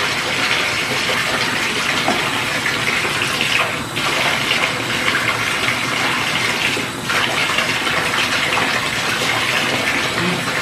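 Water running steadily into a bathtub, with two brief breaks in the stream about four and seven seconds in.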